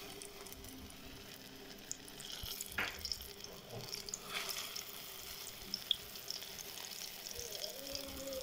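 Flour-coated chicken pieces sizzling in hot frying oil as they are laid into the pan by hand, with scattered small pops and crackles.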